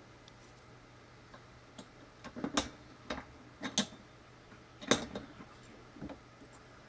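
A few sharp clicks and knocks of metal parts being handled: a small DC drill motor being fitted into the metal clamp collar of a mini drill press stand. The loudest knock comes about five seconds in.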